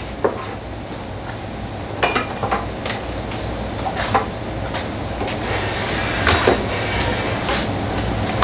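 Hands handling parts of a cordless miter saw: scattered knocks and clicks, a dozen or so at irregular spacing, over a steady low hum.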